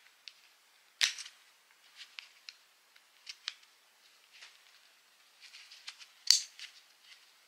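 Plastic clicks and small rattles from a Nitecore NSC10 shoulder clip being snapped and slid onto its mount by hand. Two sharp snaps stand out, one about a second in and a louder one near the end, with lighter ticks between.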